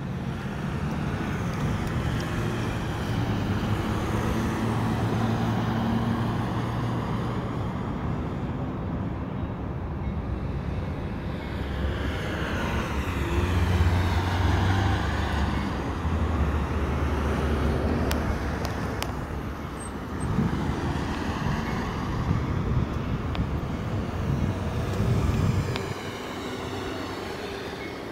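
Road traffic: cars and a pickup truck drive through the intersection close by. Their engines and tyre noise rise and fall as each one passes, then die down near the end.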